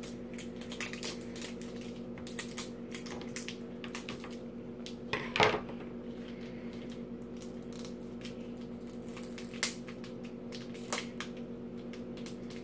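Plastic toy packaging being picked at and peeled off by hand: scattered crinkles and small clicks, with one louder crackle about five seconds in, over a steady background hum.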